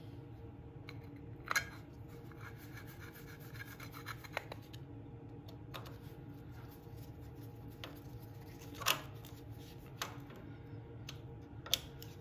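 Screwdriver turning the screws of the points cover on a small Briggs & Stratton engine, giving metal-on-metal scraping and small clicks. Three sharper clicks come about 1.5 s in, near 9 s and near the end.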